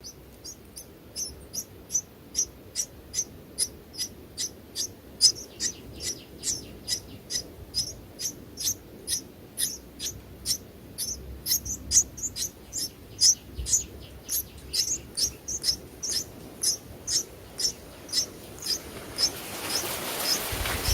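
A small bird, a sparrow at the nest, chirping: short high single chirps repeated steadily about two to three times a second. Near the end a rustling noise rises under the chirps.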